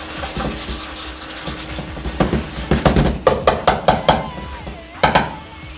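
Cooking utensils knocking and scraping against a large aluminium pot as chicken is stirred and turned in its onion sauce. In the middle comes a quick run of clinks, about four or five a second, and near the end one louder knock.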